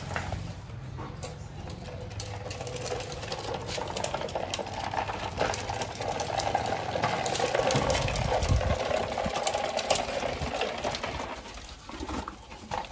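Plastic toy dump truck loaded with sand, pushed by hand over concrete and grit, its plastic wheels rolling with a steady rattle and many small clicks.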